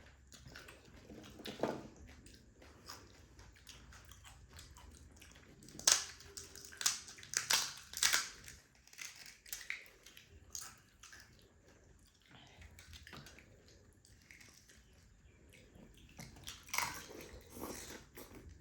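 A person eating pani puri: crisp puri shells cracking between the teeth, then chewing, with the loudest run of crunches about six to eight seconds in and another near the end.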